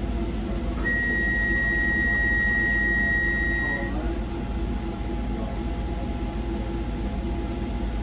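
Docklands Light Railway train's steady rumble and hum, with a single high electronic beep held for about three seconds, starting about a second in.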